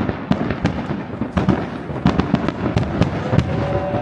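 Aerial fireworks going off in rapid, irregular succession: sharp bangs and crackling reports several times a second. Faint wavering whistles come in near the end.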